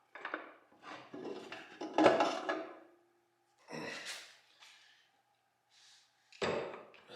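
Metal internals of a TH400 automatic transmission clanking and scraping as they are handled and slid out of the case. A louder clank about two seconds in rings briefly.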